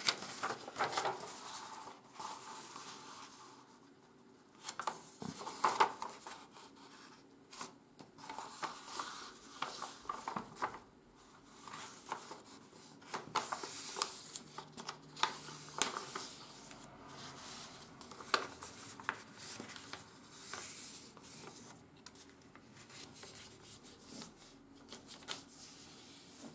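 A sheet of 80 g/m² office paper being folded and creased by hand: irregular rustling and sliding, with short sharp crackles as the folds are pressed flat.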